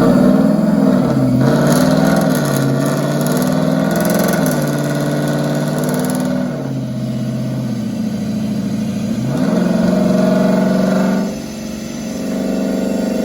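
A car engine running on a chassis dyno, its pitch rising and falling several times as it revs, then dropping back about eleven seconds in.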